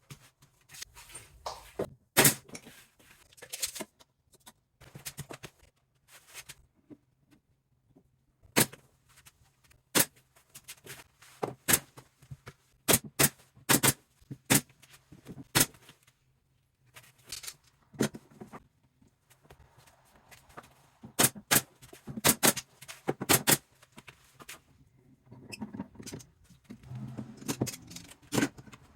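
Scattered knocks, clicks and scrapes of hand work on cabinetry as a wooden light valance is fitted under kitchen wall cabinets. Some come in quick runs of taps, with short pauses between.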